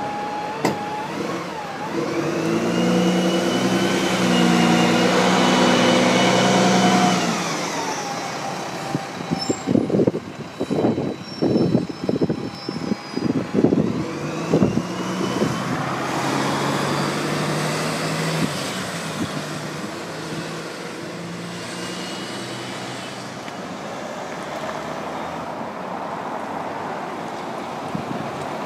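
Road traffic passing: a bus engine runs loudly with a high whine for several seconds, then a run of irregular thumps, then a second engine with a rising whine goes by about halfway through, settling into steady traffic hum.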